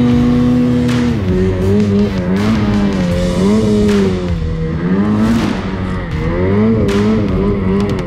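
Ski-Doo snowmobile engine at high revs pushing through deep powder. Its pitch holds for about a second, then dips and rises repeatedly as the throttle is worked.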